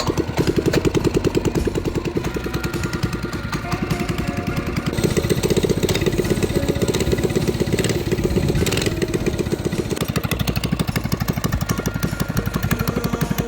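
Small single-cylinder four-stroke minibike engine running with a steady, rapid firing pulse. It runs a little harder and brighter from about five to nine seconds in, then settles back.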